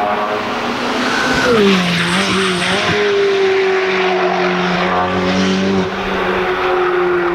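Ferrari 488 GT3's twin-turbo V8 racing engine running. Its pitch drops sharply about a second and a half in, then holds and sinks slowly.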